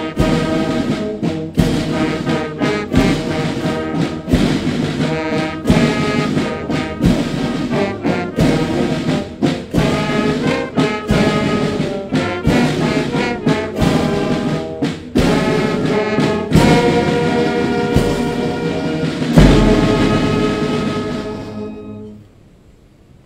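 Brass band with bass drum playing a national anthem in a slow, steady beat, closing on a loud held final chord that dies away shortly before the end.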